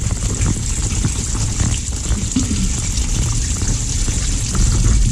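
Old, sludgy coolant gushing and splashing out of a freshly unblocked engine-block drain hole on a 5.9 Magnum V8, running steadily throughout. It splashes onto the waterproof GoPro housing, which adds a heavy low rumble.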